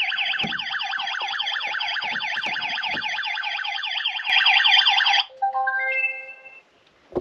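Plug-in power failure alarm sounding a fast, warbling siren because mains power is off; it gets louder for a moment, then stops about five seconds in, followed by a short run of rising beeps.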